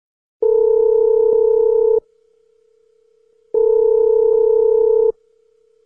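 Telephone ringback tone, heard while a call rings out: two long, steady beeps of about a second and a half each, with the same tone continuing faintly between and after them.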